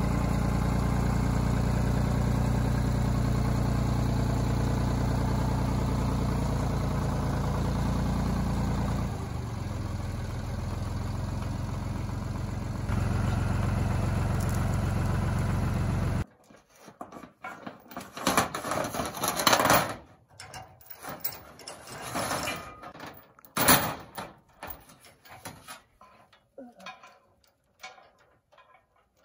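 Zetor tractor's diesel engine running steadily under loader work, dipping in level about nine seconds in and rising again around thirteen seconds; it ends abruptly after about sixteen seconds. Then come scattered metallic clanks and rattles of a chain being hooked onto the steel root grapple.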